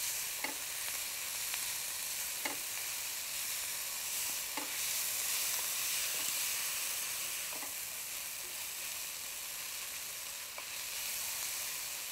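A tomato and herb mixture sizzling steadily in a frying pan while a spatula stirs it, with a light knock against the pan every two to three seconds.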